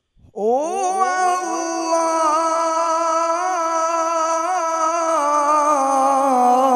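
Male qari's voice in melodic Quran recitation (tilawat): a moment in, he glides quickly up into one long held note with small ornamental turns in pitch.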